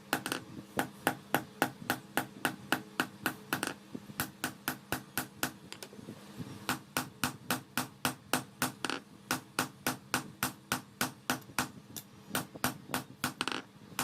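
Hammer blows on steel being forged, struck in a fast, even rhythm of about four to five a second, with a brief let-up around the middle.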